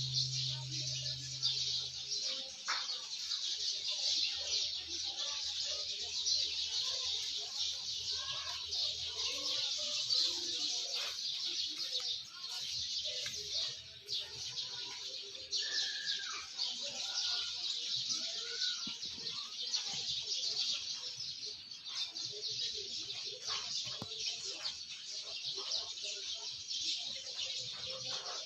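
Outdoor ambience of many birds chirping and calling, over a steady high-pitched hiss. Music fades out in the first couple of seconds.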